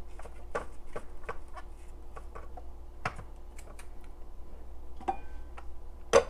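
Hard plastic food processor lid and slicing attachment clicking and knocking as they are lifted off the bowl and taken apart, with a brief squeak about five seconds in and a louder clatter near the end.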